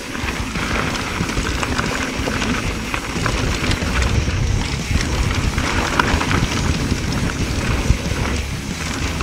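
Mountain bike riding over a rough, rocky trail: wind buffeting the microphone, a steady low rumble, and a run of short rattling knocks from the bike.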